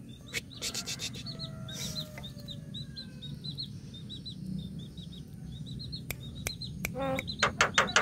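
Javan myna calling: a quick run of sharp clicks and harsh, pitched notes near the end, over short high chirps that repeat several times a second.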